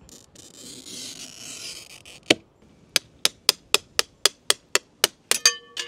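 Glass cutter's wheel scoring a pane of horticultural glass with a short hiss. Then a string of sharp taps on the glass along the score line, about four a second. The last taps leave the glass ringing briefly.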